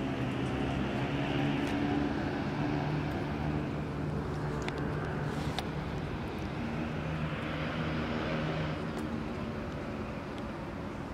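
Steady drone of city road traffic, low engine hum with the hiss of passing vehicles swelling and fading twice, and a few faint clicks.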